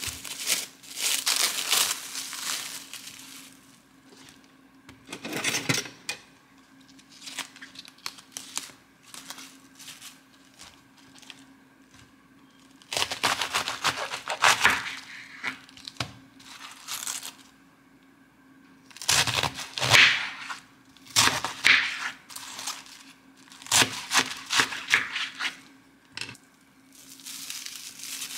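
Bursts of food-prep rustling and crackling: cabbage leaves snapped and torn off the head, and plastic cling wrap crinkling as it is handled. Near the end a knife cuts through the cling wrap around a block of meat.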